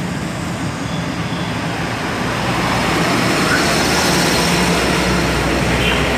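Steady road traffic noise, with a low rumble building about halfway through as a vehicle passes.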